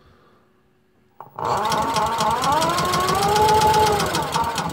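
Electric motor, driven by an electric-bike controller, cranking a propane generator's small engine: a click, then about three seconds of rapid pulsing with a whine that rises and then eases before it stops. The engine does not catch, typical of the propane not yet having come through the hose.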